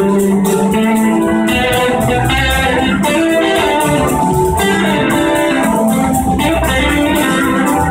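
A live blues-rock band playing, with electric guitars carrying the melody over drums that keep a steady beat.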